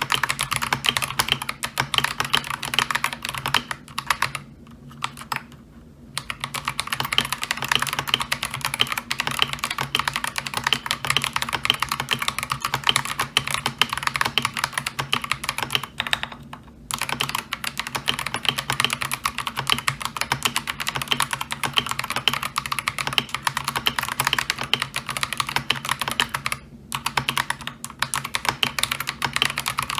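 Continuous fast typing on an Akko 3098B mechanical keyboard with stock Akko Lavender Purple tactile switches and ASA-profile keycaps: a dense, quick patter of keystrokes. There are three short pauses, about 4.5 s in, 16 s in and 26.5 s in.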